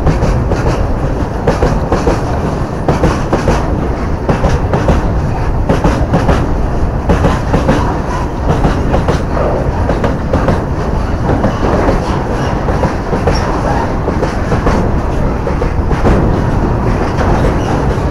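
Goods train of tank wagons rolling past close by: a steady low rumble with the wheels clattering over the rail joints in an uneven run of clacks.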